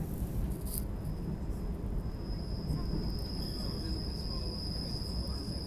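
Train running with a steady low rumble; about a second in a thin, steady high-pitched whine starts and holds.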